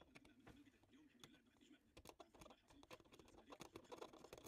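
Faint, irregular small clicks and scratches of metal tweezers handling a tiny SMD LED on a TV backlight LED strip, growing more frequent about halfway through.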